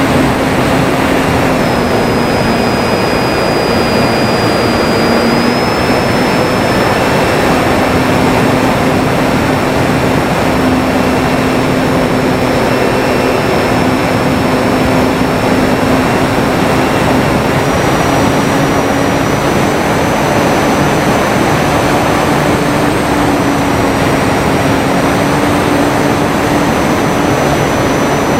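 Electric motor and propeller of a Durafly Tundra radio-control plane droning steadily, the pitch shifting slightly now and then, under a heavy rush of wind on the microphone.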